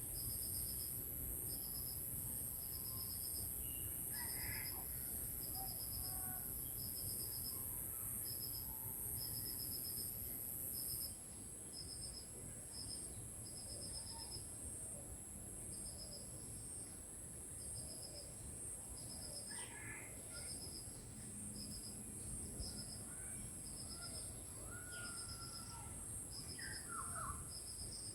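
Crickets and other insects keep up a steady high-pitched drone with a regular chirp about once a second, while birds call now and then. The drone drops in level about eleven seconds in.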